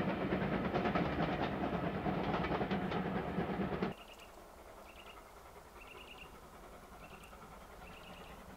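Steam-hauled passenger train rolling past close by, its wheels clicking over the rail joints; about four seconds in the sound cuts off suddenly to a much quieter scene where a small bird chirps about once a second.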